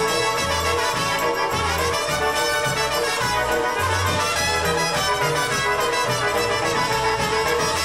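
Live polka band playing, with trumpets leading the tune over a regular bass beat of about two notes a second.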